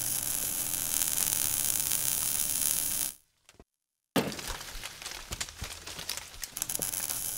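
Logo-animation sound effects: a steady crackling hiss that cuts off about three seconds in, a second of silence, then a sudden hit followed by scattered sharp clicks and crackles.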